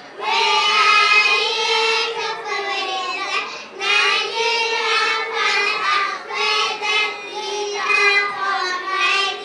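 A group of schoolchildren singing together in unison, in phrases of about two seconds with short breaks between them.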